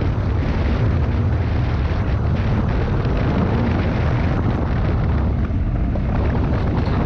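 Off-road vehicle driving fast on a dirt track: a steady engine drone mixed with heavy wind rumble on the microphone.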